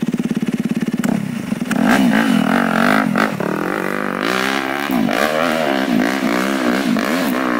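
Off-road trail motorcycle engine working up a steep dirt hill climb, its revs rising and falling again and again as the throttle is worked. For about the first second a bike close by runs with an even putter.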